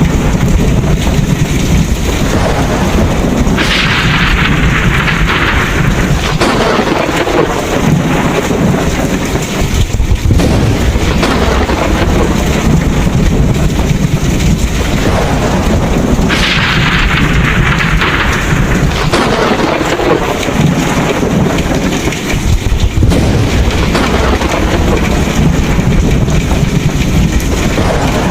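Thunderstorm: steady heavy rain with continuous low rolling thunder. The rain hiss swells twice, a few seconds in and again just past the middle.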